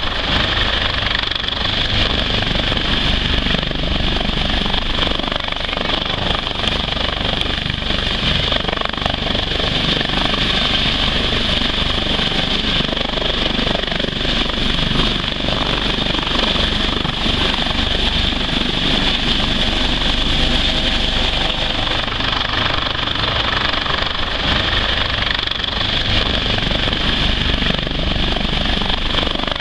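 HH-65 Dolphin twin-turbine helicopter hovering low as it comes in to land. The rotor and turbine noise runs steadily, with a high whine above it.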